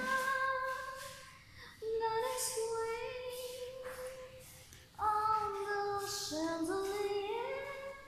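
Singing in a high voice: long held notes that step up and down in pitch, in three phrases with brief pauses between them.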